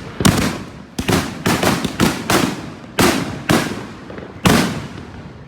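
Aerial fireworks bursting: about ten sharp bangs, some in quick clusters, each dying away briefly after the blast.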